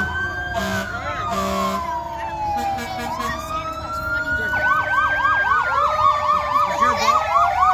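Several fire apparatus sirens sounding at once: overlapping slow wails rising and falling, joined a little over halfway through by a fast yelp of about four cycles a second. Short horn blasts sound three times in the first two seconds.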